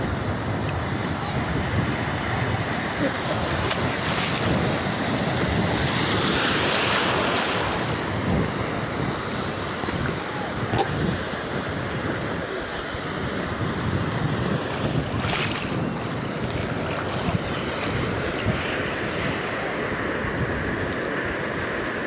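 Sea waves washing onto a sandy beach in a steady rush, swelling and easing, with wind buffeting the microphone.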